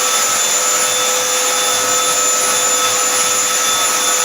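Black+Decker Power Series Pro Pet cordless stick vacuum running steadily: a constant motor whine over the hiss of rushing air.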